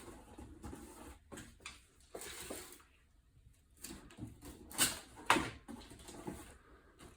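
Cardboard box being taped and handled: packing tape pulled and pressed on, with rustling, and two sharp scrapes about five seconds in.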